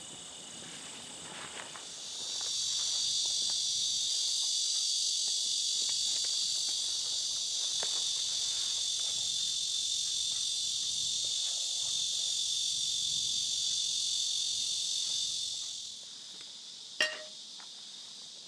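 A steady, high-pitched chorus of insects that stops abruptly near the end. About a second later comes a single sharp metallic clink with a short ring.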